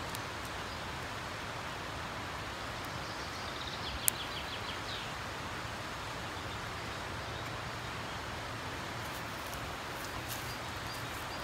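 Steady outdoor background noise with a single sharp click about four seconds in, alongside a faint run of quick high ticks, and a few faint ticks near the end.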